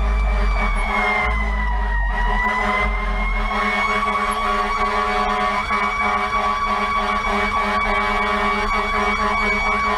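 Fire engine siren wailing, heard from inside the cab, its steady tone dipping slightly in pitch about two seconds in and then rising back, over the truck's low engine and road rumble.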